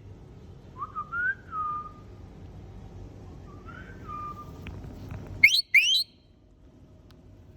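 Indian ringneck parakeet whistling: two soft whistles that rise and then hold, about a second in and about four seconds in, then two loud, quick rising whistles about five and a half seconds in.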